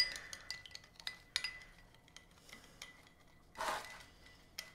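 Metal spoon stirring and clinking against a small glass bowl of melted butter and seasonings: a quick run of light taps that leave a thin ringing tone over the first second and a half, then a few sparser taps. A short soft rustle comes a little over three and a half seconds in.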